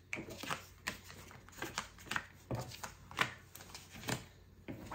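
Tarot cards being dealt by hand and laid down on a cloth-covered table: a string of soft, irregular taps and flicks.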